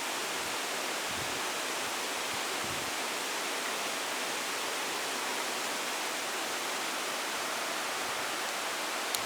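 Waterfall rushing, a steady even roar of falling water, with one short click near the end.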